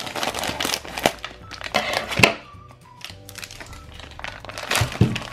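Clear plastic bag crinkling and rustling in bursts as a block of kinetic sand is pulled out of it, over background music.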